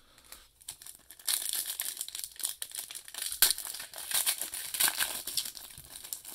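Foil wrapper of an Elite baseball card pack being torn open and crinkled by hand, starting about a second in as a dense run of sharp crackles.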